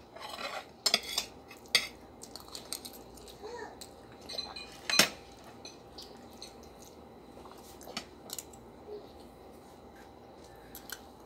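Metal spoons and forks clinking and scraping against ceramic dinner plates while eating, in scattered sharp clicks, the loudest about five seconds in.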